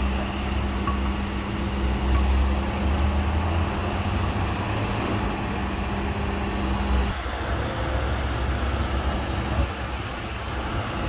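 Heavy diesel machinery running steadily: a low engine rumble with a steady droning hum that drops out about seven seconds in and comes back near the end.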